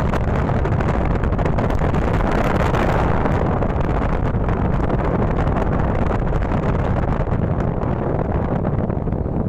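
Strong wind buffeting a smartphone's microphone: a loud, steady rush of noise with many small crackles.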